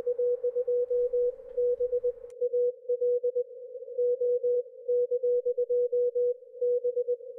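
Morse code (CW) from an amateur station on the 60-meter shortwave band, heard through a software-defined radio receiver: a single steady beep keyed on and off in dots and dashes. Faint static behind the tone drops away about two seconds in, leaving the beeps alone.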